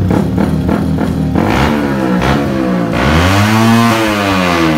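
Yamaha WR155's single-cylinder engine, fitted with an aftermarket racing ECU, idling, then revved by a twist of the throttle about a second and a half in. Its pitch climbs to a peak and falls back near the end.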